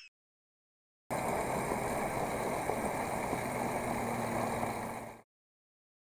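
Steady engine-like running sound for a miniature DIY toy tractor. It starts about a second in, holds level for about four seconds, and cuts off abruptly.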